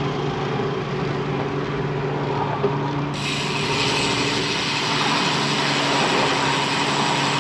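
Riding noise from a road bicycle: wind over the camera microphone and tyres rolling on concrete pavement, under a steady low hum. A brighter hiss comes in about three seconds in.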